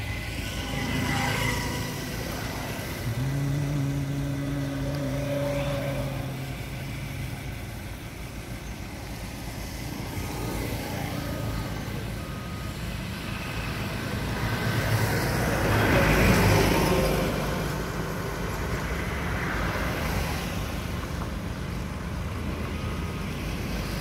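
Diesel engines of earthmoving machinery, a crawler excavator and then a bulldozer, running steadily with a low rumble. A steadier engine note holds for a few seconds early on, and a louder rush of noise swells and fades about two-thirds of the way through.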